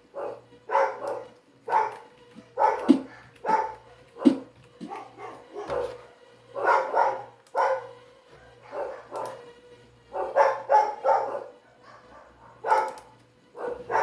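A dog barking repeatedly in short, irregular barks, often two or three in quick succession.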